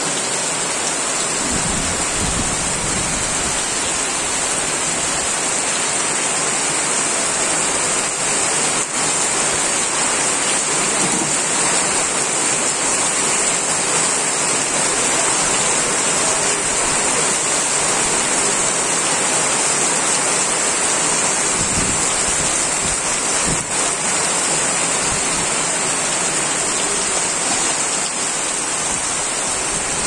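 Heavy rain falling as a steady downpour on a wet road and on the roof overhead.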